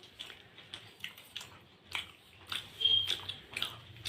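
Close-up chewing and mouth sounds of people eating soft rice-flour pithe (dudh puli), with scattered wet clicks and smacks.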